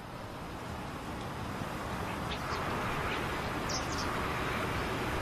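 Steady outdoor background noise, slowly growing louder, with a few faint, short bird chirps near the middle.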